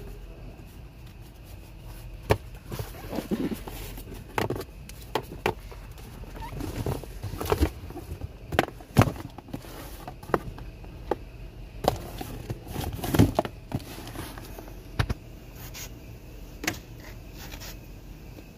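Irregular clicks, knocks and rustles of close handling over a steady low hum, with the loudest knocks clustered about halfway through and again a little later.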